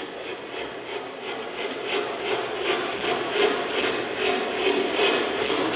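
Train sound effect: a rhythmic chugging at about three beats a second, growing louder as the train approaches.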